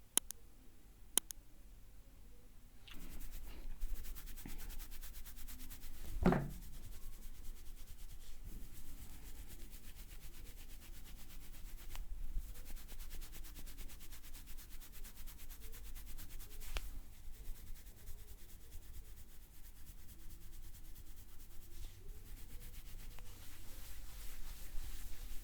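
Hands rubbing and working through hair and scalp in a head massage, a steady dry friction noise starting about three seconds in. A dull thump about six seconds in and a few sharp clicks stand out.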